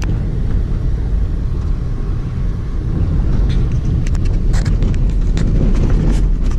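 Steady low rumble of a car driving, heard from inside the moving car, with scattered light clicks in the second half.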